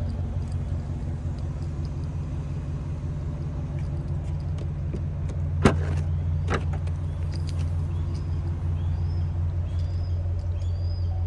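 An engine idling with a steady low hum, with two sharp clicks about a second apart near the middle.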